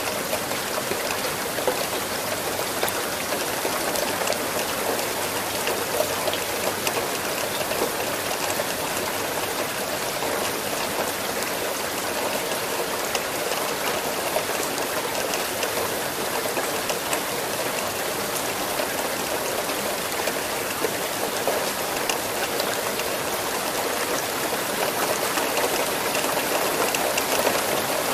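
Steady, heavy rain falling, a dense even hiss with many individual drops pattering on surfaces.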